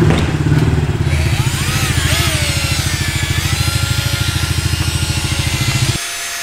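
Cordless drill spinning a foam polishing pad against a motorcycle's front fender, buffing in polish, with a fast low pulsing and a motor pitch that rises and falls as the load changes. It stops suddenly about six seconds in.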